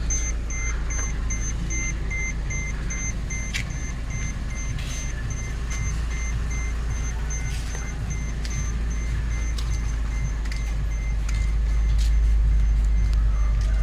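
Mercedes-Benz CLS 350's 3.5-litre V6 idling steadily, running again after its ME9.7 engine computer was repaired for a no-crank, no-start fault. A faint high beep repeats evenly throughout.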